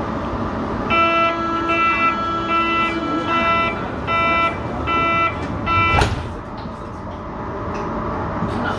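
Berlin U-Bahn HK06 train running through a tunnel, heard from inside the car. About a second in, an electronic beep made of several steady tones starts sounding in pulses, about seven beeps spaced roughly three-quarters of a second apart. It stops with a sharp knock about six seconds in.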